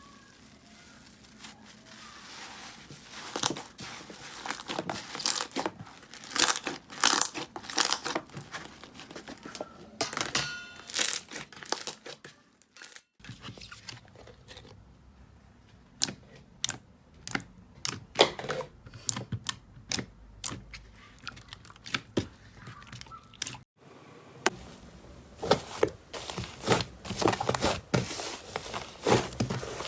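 Slime being handled, giving dense crackling and popping clicks, in three stretches separated by abrupt cuts.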